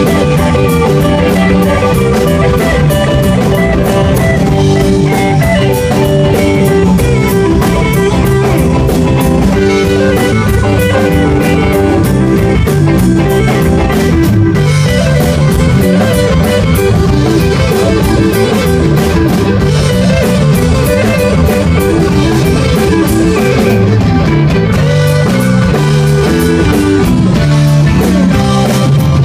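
Rock band playing an instrumental passage: guitars over a steady drum-kit beat.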